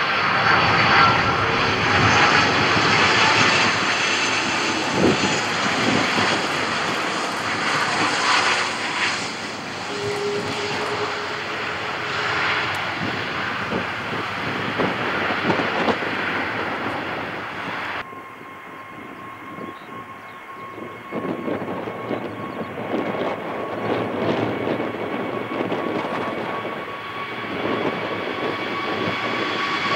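Twin-engine Airbus A330 jet airliner passing low on final approach and touching down, its engines loud and steady. About two-thirds of the way through the sound drops abruptly and gives way to a four-engine Airbus A380 accelerating on its take-off roll, its engine noise building steadily with a thin whine.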